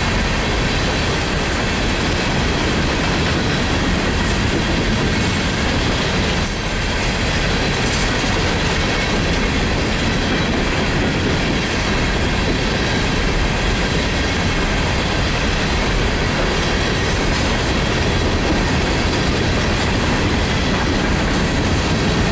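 Empty coal hopper cars of a freight train rolling past: a steady, unbroken noise of steel wheels running on the rails.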